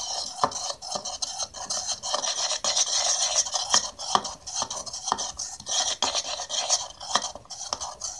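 A utensil stirring clear glue and borax solution in a ceramic bowl: continuous scraping against the bowl with many quick clicks and taps.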